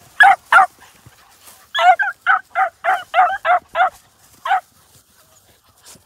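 Beagle puppies giving short, high-pitched yips. There are two at the start, then a quick run of about seven, and one more a little later.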